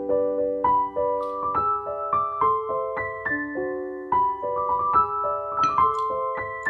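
Background piano music playing a melody of single notes over held chords.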